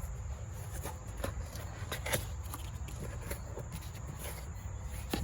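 Scattered light knocks and rustles of hands unpacking and handling a new air filter element, over a low steady rumble.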